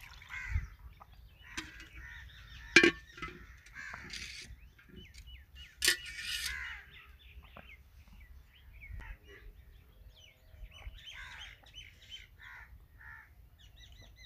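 Birds calling, with many short calls scattered through, and two sharp clicks, about three and six seconds in.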